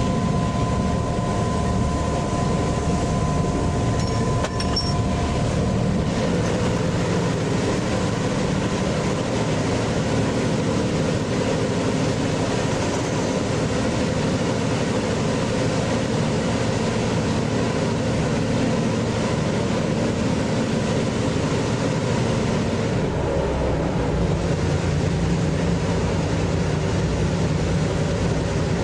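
DA-class locomotive's EMD 567 diesel engine running steadily under way, heard from the cab, with wheel and rail noise. A thin steady whine fades out within the first few seconds, and the sound turns deeper toward the end.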